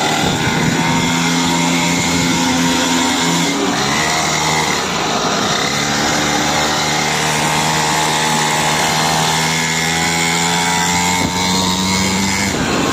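Small 49cc petrol engine of a mini dirt bike running at a steady high buzz while it is ridden. Its pitch dips briefly about four seconds in, then holds steady before falling away near the end.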